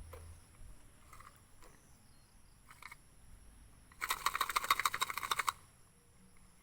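A rapid run of clicks or rattling for about a second and a half, starting about four seconds in, over faint outdoor background.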